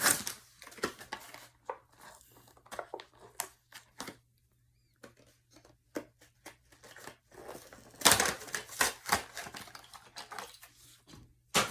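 Toy packaging being opened by hand: scattered clicks and taps of cardboard and plastic, with bursts of crinkling and tearing about eight seconds in and again near the end.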